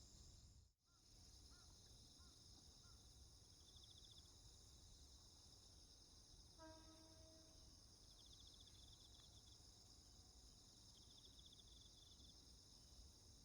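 Faint, steady chorus of insects chirring in high continuous bands over a low background rumble. A sound briefly drops out just under a second in, and a short pitched tone sounds about six and a half seconds in.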